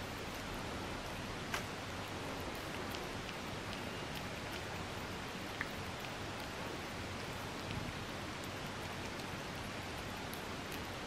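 Steady even hiss, with a couple of faint soft clicks, about a second and a half in and again past five seconds.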